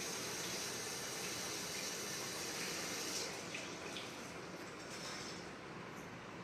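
A steady hiss that cuts off about three seconds in, leaving fainter background noise with a few light clicks.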